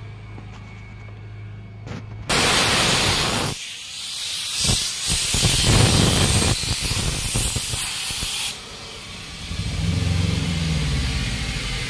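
Compressed air hissing loudly from an air-hose chuck pressed onto an inner tube's valve stem, inflating the tube. The hiss starts suddenly about two seconds in, wavers with short breaks as the chuck is held on the valve, and stops a few seconds before the end.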